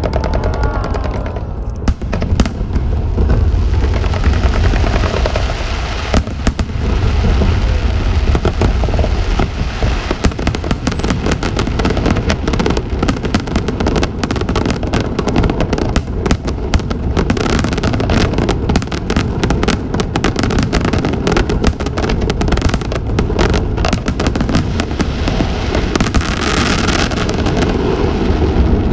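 Fireworks display: a dense barrage of bangs and crackling bursts over a continuous low rumble. A whistling shell comes in the first second or two.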